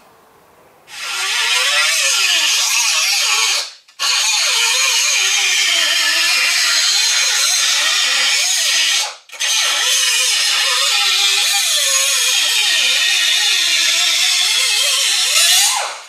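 Hand-held electric grinder working sheet-metal repair pieces, in three long runs with short stops between; the motor's pitch wavers up and down as the tool is pressed into the metal.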